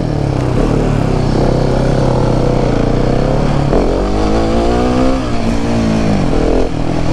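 Husqvarna 701's single-cylinder four-stroke engine pulling hard as the bike accelerates. The revs climb until a gear change nearly four seconds in, climb again, then drop back near the end.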